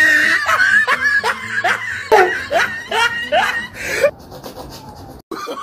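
A person laughing in a quick string of short, pitched "ha" sounds for about four seconds, then a softer, quieter stretch near the end.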